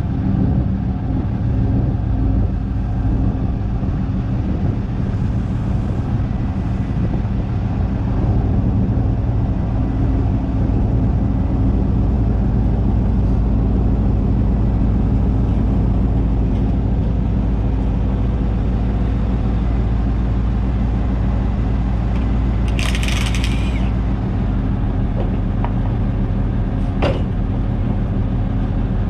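A heavy vehicle's engine running steadily with a low drone. About 23 seconds in there is a short hiss of released air, and a sharp click follows a few seconds later.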